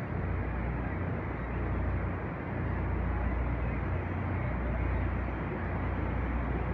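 Steady rumble and hiss on the deck of a tour boat under way: wind buffeting the microphone over the boat's engine and rushing water.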